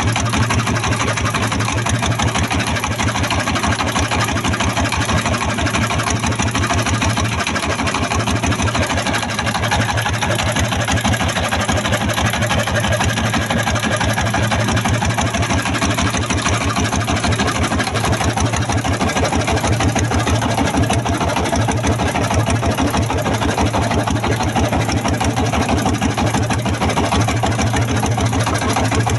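A boat's engine running steadily, with a rapid, even pulse and a low hum.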